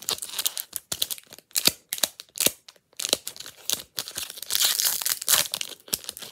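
Foil wrapper of a footy trading-card pack crinkling as it is handled and torn open, in irregular crackles, with a denser run of crinkling about four seconds in.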